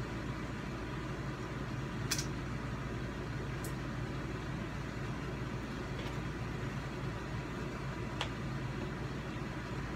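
Steady low background hum of a small room, with a few faint short clicks scattered through it.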